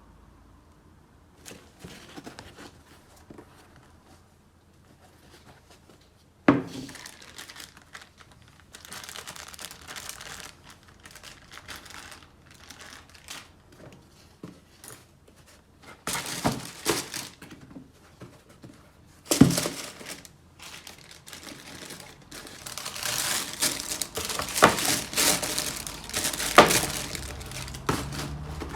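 Paper packaging crinkling and tearing as a sneaker box is unwrapped and handled, with a couple of sharp knocks of the box along the way and a long stretch of steady crinkling near the end.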